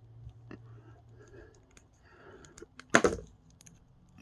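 Small plastic clicks and taps from an action figure being handled as its weapon accessories are pushed into its tight-fitting hands, with one louder knock about three seconds in.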